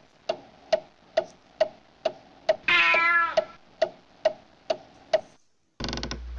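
Steady ticking, like a clock, about twice a second, with a ginger cat meowing once about three seconds in. Near the end the ticking stops and a louder steady noise with a low hum cuts in.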